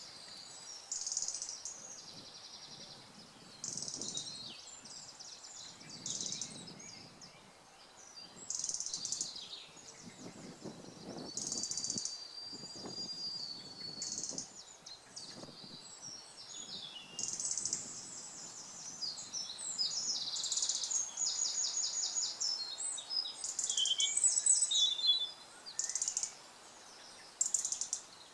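Several woodland songbirds singing at once, a continuous run of high, varied phrases and rapid trills that grows busier and louder in the last few seconds.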